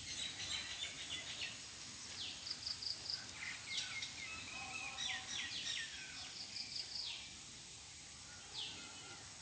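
Small birds chirping and twittering: many short calls, quick downward sweeps and brief trills, over a steady high hiss.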